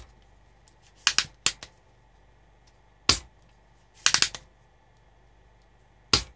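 Spring-loaded desoldering pump (solder sucker) firing with sharp plunger snaps, several times over a few seconds, sucking old solder out of the through-holes of a circuit board: a pair about a second in, one at about three seconds, a quick cluster at about four seconds and one more near the end.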